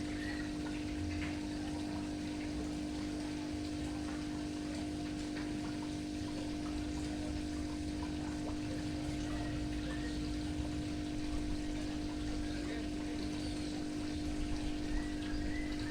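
Water pouring and trickling from a fish-keeping water pump, with the pump's steady hum underneath.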